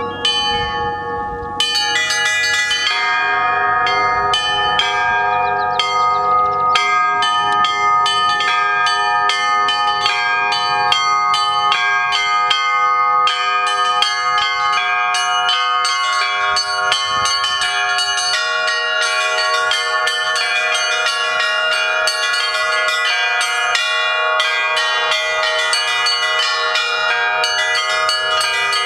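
Russian Orthodox church bells of Kizhi rung by hand: a fast, steady pattern of strikes on small high bells over the longer ring of lower bells, growing louder about a second and a half in.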